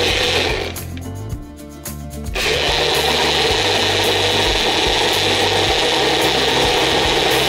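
Personal blender running, its cup held pressed down on the motor base as it blends liquid: a steady loud whir that cuts out shortly after the start and starts again about a second and a half later.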